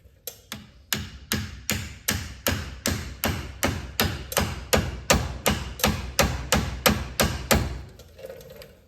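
Hammer tapping a new bushing into the suspension arm of a Polaris Ranger side-by-side, about twenty evenly paced sharp knocks at roughly three a second that stop about a second before the end.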